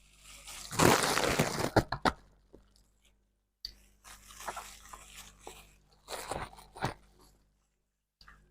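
Rose-shaped ice being bitten and crunched between the teeth close to the microphone: a loud crunching bite about a second in, then bouts of crunchy chewing, twice broken by abrupt dead silence.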